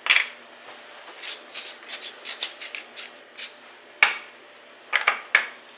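Hands seasoning fingerling potatoes on a parchment-lined sheet pan: scattered light ticks and rustles, with a sharp knock about four seconds in and a few more clicks near the end.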